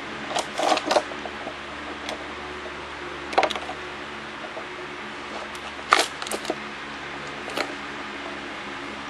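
Plastic LEGO bricks clicking and rattling as hands work a brick-built toy garbage truck: a few short clusters of sharp clicks, the loudest about a second in and about six seconds in, over a steady low hum.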